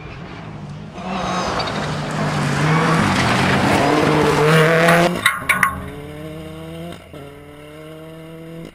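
Rally car passing at speed on a gravel stage: the engine runs hard over a loud hiss of gravel and tyres as it slides through the corner. A few sharp cracks come about five seconds in, then the engine pitch climbs as it accelerates away, with a gear change about seven seconds in.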